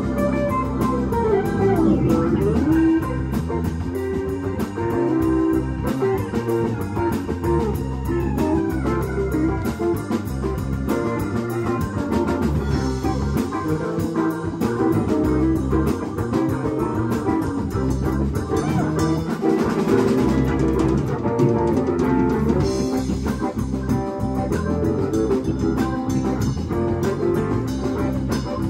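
Live rock band playing: electric guitar leading over bass guitar, drum kit and keyboards, with sliding guitar notes in the first few seconds.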